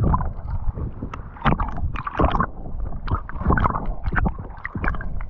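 Seawater sloshing and splashing around a microphone at the sea surface, in irregular short strokes over a steady low rumble of water buffeting.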